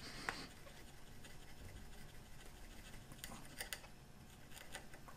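Faint scraping and a few small ticks of a narrow chisel pared by hand into wood, cleaning the waste down to the scribed baseline at the base of dovetail tails.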